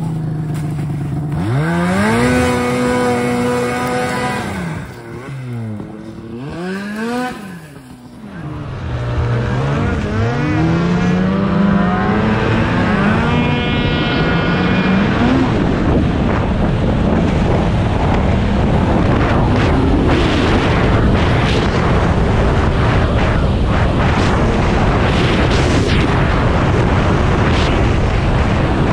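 Snowmobile engine revved up and down again and again while the sled is stuck in deep snow, its track spinning to dig out. After about eight seconds a snowmobile pulls away with the engine pitch climbing, then runs steadily at speed with the rush of the track and wind.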